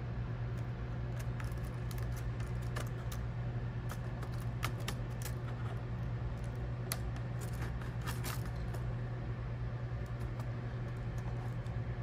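ThinkPad T420 keyboard being pushed and slid loose from the laptop's frame, its plastic keys and frame clicking and rattling at irregular moments, over a steady low hum.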